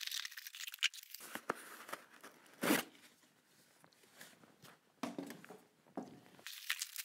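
Cardboard packing and plastic wrapping rustling, scraping and crinkling as a box is unpacked by hand, in irregular bursts with a few sharper clicks, the loudest a little under three seconds in.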